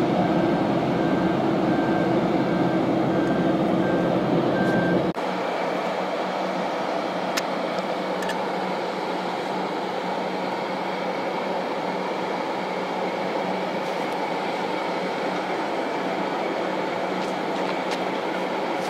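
Steady turbine drone of a parked Airbus A320 airliner on the apron, typical of its auxiliary power unit running with the main engines off. A high beep repeats about twice a second over the first five seconds. About five seconds in, the sound changes abruptly and the deep rumble drops away, leaving a thinner steady drone.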